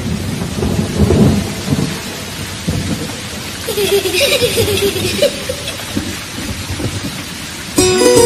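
Rain falling with rolling rumbles of thunder, a thunderstorm sound effect laid into a song's break; the song's music comes back in near the end.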